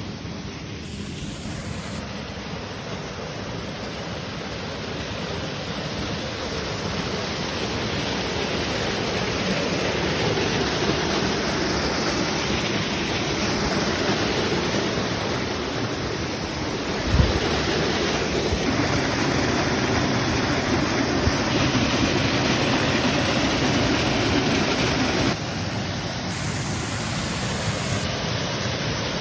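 Waterfall rushing: a steady roar of falling water that grows louder over the first several seconds. There is one brief low thump about two-thirds of the way through.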